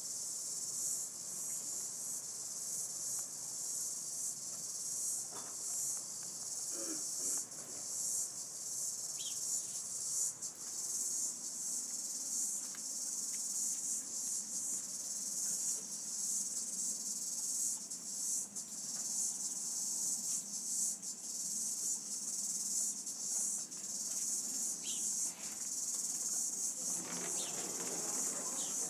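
Steady, high-pitched chorus of insects, shimmering slightly.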